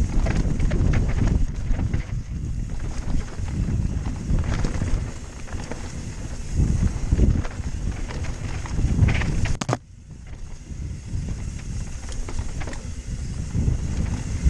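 Mountain bike descending a rocky dirt trail: knobby tyres rumbling and crunching over rock and damp, tacky dirt, with rattling knocks from the bike and wind buffeting the microphone. A sharp knock about ten seconds in, after which it runs quieter.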